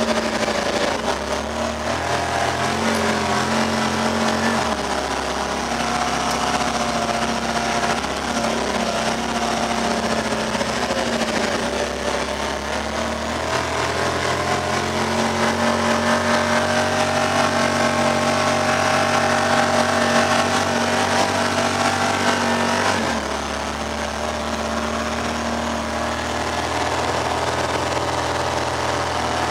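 Honda Pioneer 1000 side-by-side on snow tracks, its parallel-twin engine running steadily under way, heard from inside the cab. The engine note steps to a new pitch a few times, and is loudest shortly before a drop about three-quarters of the way through.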